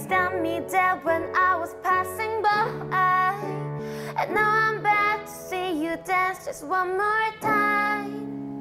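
A young woman singing with a digital keyboard accompaniment. Her melody moves up and down with vibrato on held notes over sustained keyboard chords, and a final chord fades out near the end.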